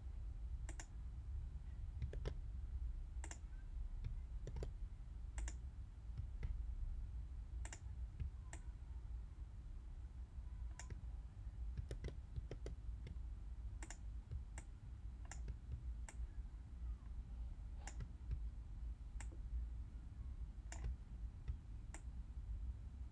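Faint, irregular clicks from a computer input device, about one a second, as warp points are clicked and dragged in an image editor. A low steady hum runs underneath.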